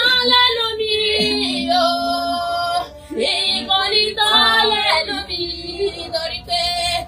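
A woman's voice crying out in long, wavering, sing-song wails, with a short break about three seconds in.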